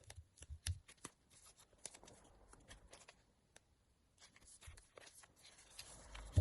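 Small clicks and taps as an iPhone XR screen is pressed along its edges to snap its clips into the frame, with a louder thump at the very end.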